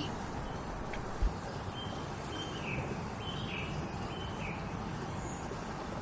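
Outdoor pond ambience: a steady even hiss under a high, constant insect drone, with a few faint short chirps between about two and five seconds in and a single soft low thump just after a second.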